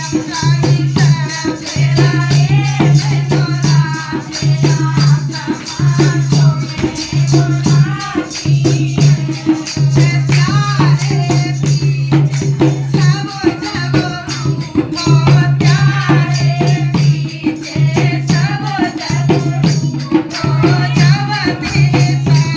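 Hindi devotional song (bhajan): a wavering melody line over a steady low drone, with a fast, even rattle keeping time.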